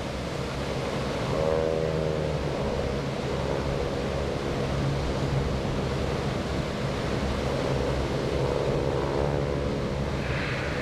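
Four SNJ Texans' Pratt & Whitney R-1340 nine-cylinder radial engines droning in formation flight overhead, the engine tone swelling and bending slightly twice as the planes move.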